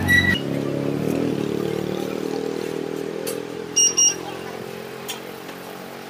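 A vehicle engine passing by, its steady hum slowly fading away. Two short high beeps sound about four seconds in.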